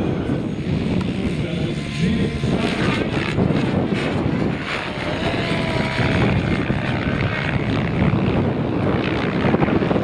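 Electric RC helicopter (Minicopter Diabolo) lifting off and climbing, its rotor whine wavering in pitch, heavily masked by strong wind rumbling on the microphone.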